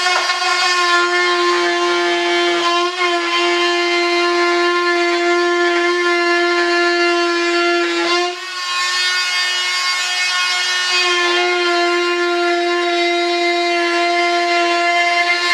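Handheld power cutter whining at a steady high pitch as it trims cured fiberglass along the edge of a mold. The sound dips briefly a little over eight seconds in, then carries on.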